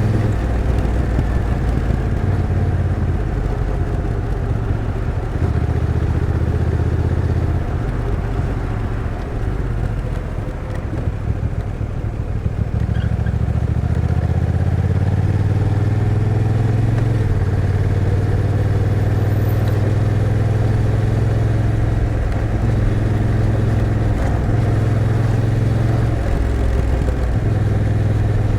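A 2023 Honda NT1100's 1,084 cc parallel-twin engine running under way. Its note steps up and down several times and eases off briefly about a third of the way in.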